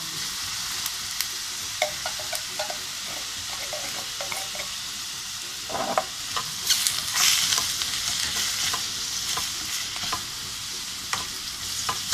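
Sliced mushrooms, onion and garlic sizzling in olive oil in a stainless steel pan, with a spatula clicking and scraping against the pan as they are stirred. The sizzle and stirring get louder for a couple of seconds a little past halfway.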